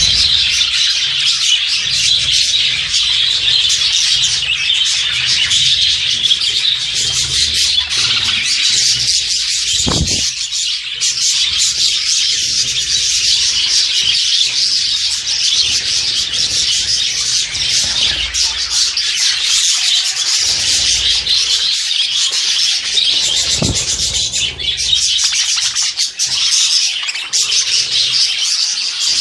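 Many caged budgerigars and other small birds chattering and chirping at once in a dense, unbroken mass of sound.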